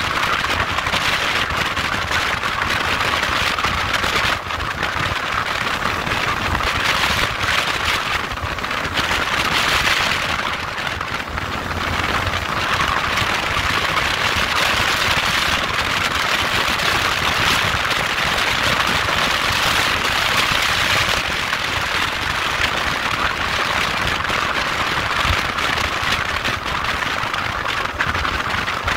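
A motorcycle on the move: a steady rushing noise with a low engine rumble underneath.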